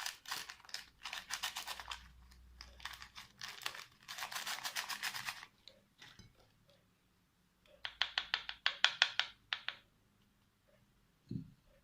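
Paper sachets of baking powder being torn open and crinkled, in crackly bursts over the first five seconds or so. A quick run of about a dozen sharp scratchy strokes follows a couple of seconds later, then a short low thump near the end.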